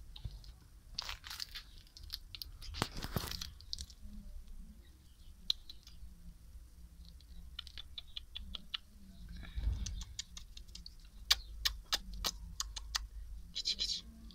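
Scattered small clicks and crackles, with two short rustling bursts about one and three seconds in and a low rumble underneath.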